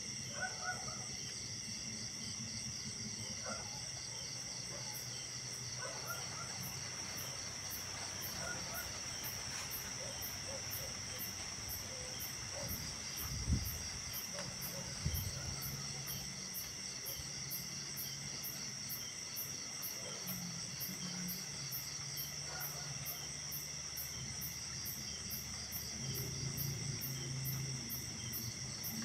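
Night insect chorus: crickets and other insects trilling steadily at several pitches, joined a few seconds in by a fast, high, evenly pulsing chirp. Scattered short calls and two dull thumps come near the middle.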